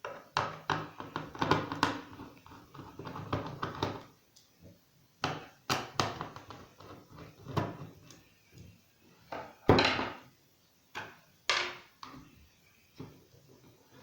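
Objects being handled on a workbench: a run of scraping and rattling in the first few seconds, then scattered clicks and knocks, the loudest a single knock near the end.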